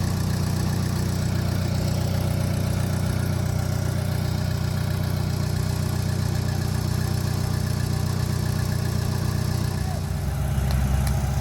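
Heavy machine's diesel engine running steadily at a low idle, its pitch shifting and the sound growing a little louder about ten seconds in.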